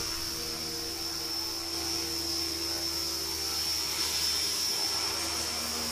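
JR Forza 450 electric radio-controlled helicopter flying, its motor and rotor giving a steady high-pitched whine.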